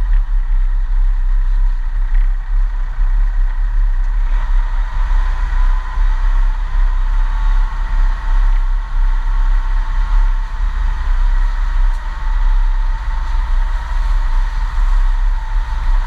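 Vehicle driving slowly along a rutted dirt track: a constant heavy low rumble that keeps wavering in strength, with a steady hiss of road and running noise over it.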